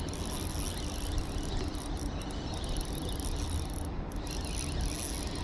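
Ultralight 2000-size spinning reel giving a steady high buzz, with a few brief breaks, as a hooked fish is played on the rod, over a low rumble.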